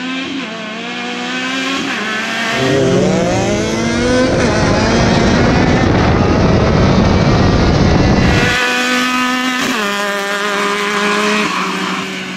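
Two side-by-side UTV engines, a Yamaha YXZ with an aftermarket Alba exhaust and a Can-Am Maverick X3, revving and accelerating hard off the line in a drag race, the pitch climbing. In the middle the engine is heard from inside the X3's cab, under loud wind rush. It then cuts suddenly to both machines heard running away at speed, the engine pitch stepping down and climbing again a couple of times.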